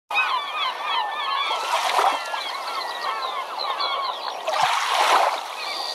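A flock of birds calling over one another, many short calls at once. Two rushing swells of noise rise through them, one about two seconds in and one near five seconds, the second with a brief low thump.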